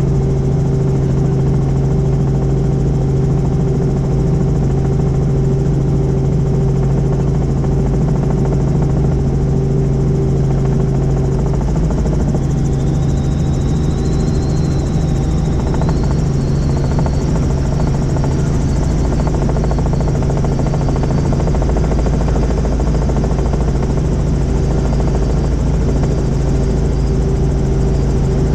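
Helicopter engine and rotor running steadily at a constant pitch and loudness. A faint high whine rises briefly about halfway through.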